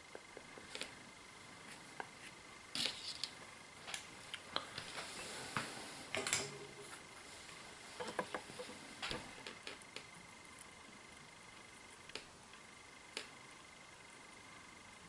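Faint handling noise of light clicks and rustles, most of them in the middle, as stranded wires clamped in a small bench vise are bent by hand and a soldering iron is brought up to them.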